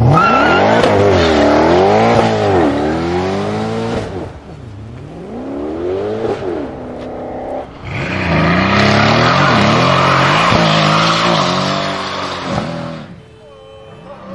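Mercedes-AMG C63 V8s revving hard with the rear tyres spinning: for the first seven seconds an engine's pitch sweeps up and down through repeated rev bursts. From about eight seconds a C63 holds high revs in a burnout under a loud, steady tyre squeal, which cuts off about 13 seconds in.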